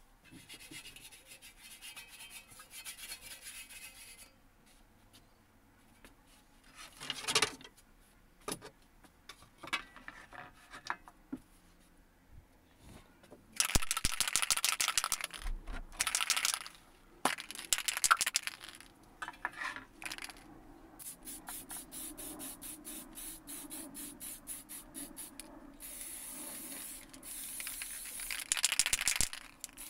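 A steel shovel blade and a masking board being handled on a workbench, with scattered knocks and scrapes. Then an aerosol spray-paint can is shaken, its mixing ball rattling in quick, even clicks, and about four seconds before the end spray paint hisses out of the can onto the blade.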